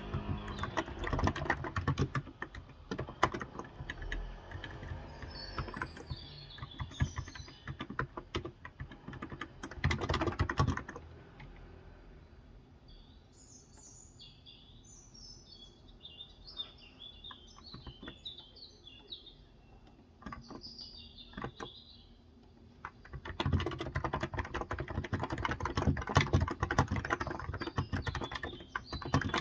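Typing on a Cox Endeavor electro-capacitive (non-contact) 35 g tenkeyless keyboard, quick runs of keystrokes. The typing stops for about ten seconds in the middle, when small birds chirp, then resumes near the end.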